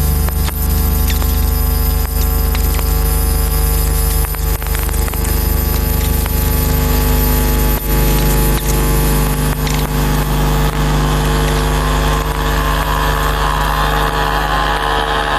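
Man-made electromagnetic fields picked up by a loop antenna and played as sound: a loud, steady low hum with many stacked steady tones, buzzing and scattered clicks and crackles. About three-quarters of the way through, a new set of higher buzzing tones comes in.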